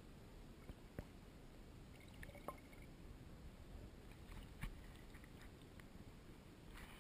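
Faint, muffled low rumble of river water picked up by a camera held underwater, with a few soft clicks and knocks. Near the end the camera comes up out of the water and a short splashing hiss starts.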